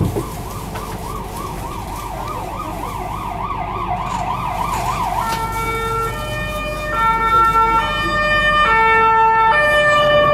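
An electronic warbling tone rising and falling several times a second gives way, about five seconds in, to a run of held electronic notes that step between different pitches.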